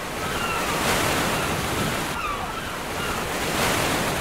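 Wind buffeting the microphone: a rushing noise that swells and eases, loudest about a second in and again near the end.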